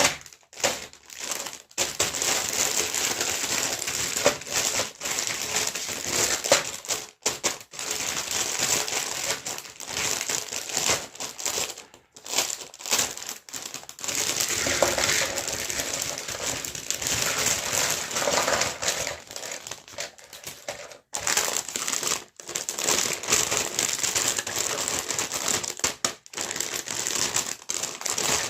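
Plastic packaging crinkling and rustling as it is handled and unwrapped, in long crackly stretches broken by short pauses.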